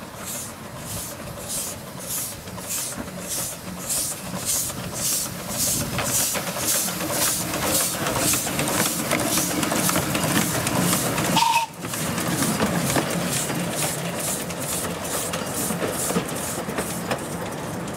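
Miniature 15-inch-gauge steam locomotive running light, its exhaust chuffing about twice a second with steam hiss, getting louder as it draws near and easing off as it moves away.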